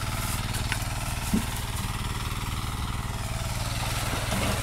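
A small engine running steadily at an even idle, with a short knock about a second and a half in.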